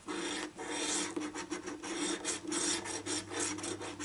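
Scratch-off lottery ticket being scratched: quick, uneven rasping strokes, several a second, as the latex coating is rubbed off.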